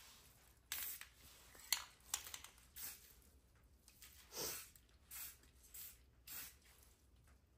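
Dry grass stems rustling and crackling against a plastic drop sheet as they are laid by hand over a rifle as a camo-paint stencil: a string of short, faint scratchy rustles with a sharp click a little under two seconds in.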